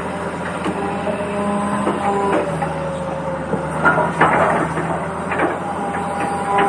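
Small electric motors of a toy excavator whining at several steady pitches that switch on and off as it works, with gritty scraping and crunching of sand and stones about four seconds in and again about a second later.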